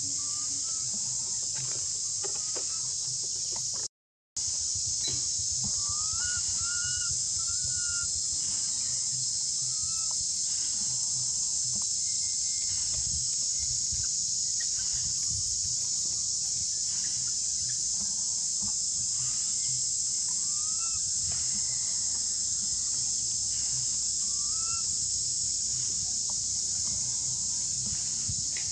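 Steady high-pitched drone of insects, with short rising calls now and then, a run of them about six to eight seconds in. The sound cuts out completely for a moment about four seconds in.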